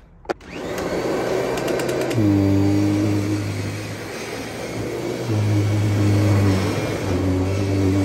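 Kirby G4 upright vacuum cleaner switched on with a click, its motor spinning up over the first second and then running steadily as it is pushed over a carpet strewn with sawdust. From about two seconds in, a low steady hum comes and goes within the running noise.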